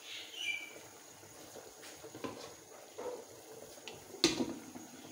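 A metal cooking pot and its lid being handled: a short squeak near the start, a few light knocks, then one louder clank with a brief ring about four seconds in.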